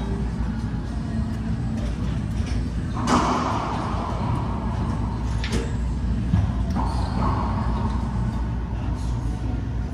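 Racquetball rally in an enclosed court: several sharp hits of ball on racquet and walls, echoing, over a steady low rumble. The loudest hit comes about three seconds in and rings on for about a second.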